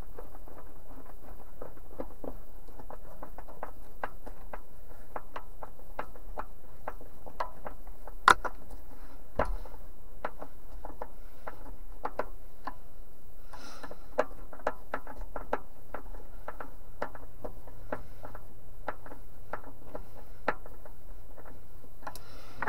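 Screwdriver turning screws to fasten a cargo shade retaining clip: a run of light, irregular clicks, about two or three a second, with one sharper knock about eight seconds in.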